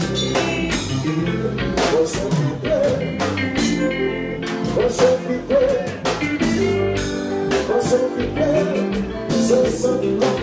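Live kompa band playing through a PA: a male lead voice singing over drums, guitar and keyboards, with a steady run of drum hits.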